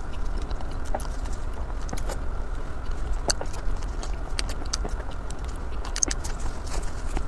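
Bread being bitten and chewed close to the microphone: a run of irregular short crunchy clicks, over a steady low hum.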